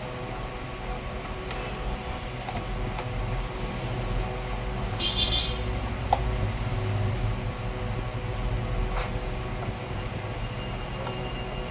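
Electric sander running steadily against a plastic headlight lens, a constant motor hum with a low rumble and a few light clicks.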